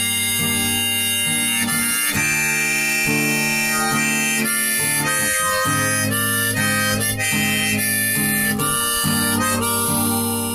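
Harmonica playing a melody over a strummed acoustic guitar, with held notes and chords changing every half second or so.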